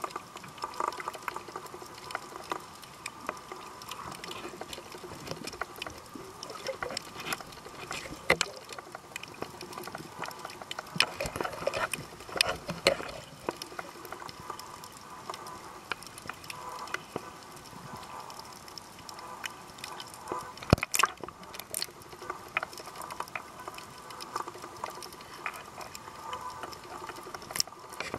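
Water heard underwater while snorkeling: a steady wash of moving water and bubbling with frequent small clicks and crackles. A few sharper knocks stand out about two-thirds of the way through and again near the end.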